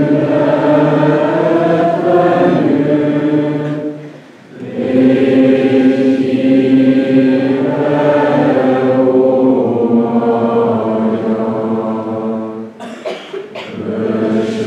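Many voices singing together, choir-like, in long, slowly moving held notes. There is a break for breath about four seconds in, and a few short clicks just before the singing resumes near the end.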